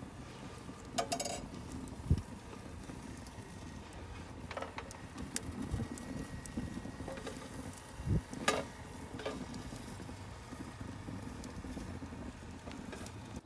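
Chestnuts roasting over a wood-stove fire: faint crackling and scattered sharp clicks, with two soft knocks, one about two seconds in and one about eight seconds in.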